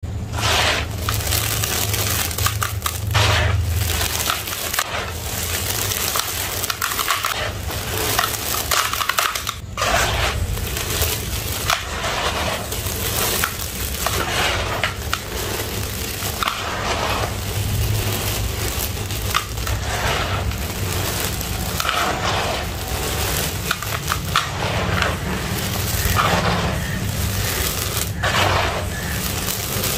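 Hands crumbling, squeezing and pouring dry gritty red sand mixed with concrete powder in a basin: continuous dry crunching and crumbling, with grit and powder pouring back into the basin.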